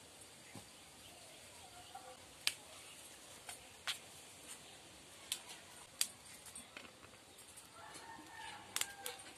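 Sharp cracks and snaps of a raw cauliflower head being broken and cut into florets, about seven at irregular intervals. Faint bird calls sound in the background, most near the end.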